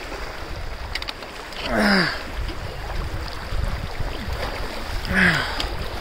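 Steady rush of a shallow mountain creek and the swish and splash of legs wading through it. Twice, about two seconds in and again near the end, a person gives a short exclamation that falls in pitch, reacting to the icy water.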